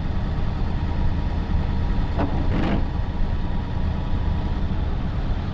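The ambulance-conversion van's engine running, a steady low rumble heard from inside the cab, with a brief scratchy noise a little over two seconds in.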